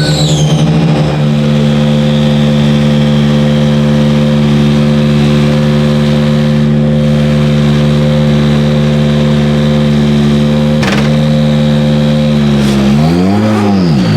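Ferrari P80/C's 3.9-litre twin-turbo V8 running at a steady, held engine speed. There is a sharp click about eleven seconds in, and near the end the revs dip and climb back up.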